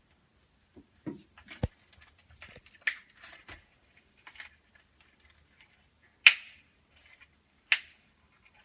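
Plastic toothbrush packaging being pried open by hand: scattered small clicks and knocks, then two sharp snaps of the plastic, the louder about six seconds in and another a second and a half later.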